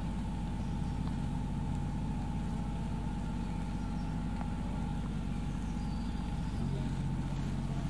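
A steady low rumble with a faint, steady high whine above it.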